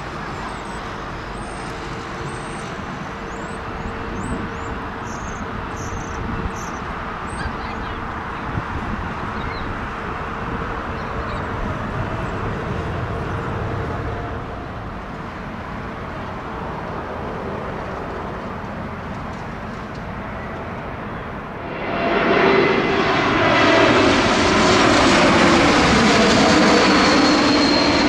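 Steady rumble of a distant jet airliner climbing away, with a faint hum. About 22 s in, a KLM Embraer E-Jet low on final approach comes in much louder: the rushing noise of its twin CF34 turbofans, with tones that sweep as it passes close.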